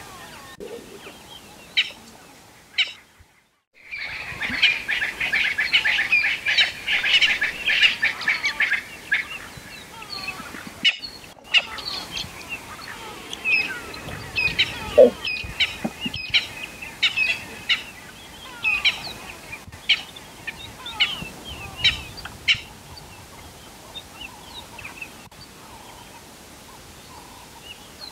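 Wild birds chirping and calling. After a brief drop-out about three seconds in comes a dense chorus of chirps for several seconds, then scattered separate calls.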